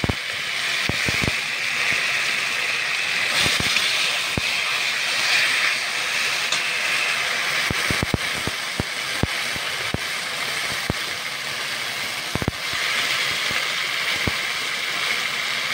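Steamed taro greens sizzling in hot oil in a kadai, a steady hiss, with irregular sharp knocks and scrapes of a spatula against the pan.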